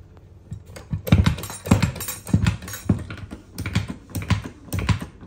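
Steel hydraulic tools being handled on a workbench: a series of sharp clicks and knocks, about two a second.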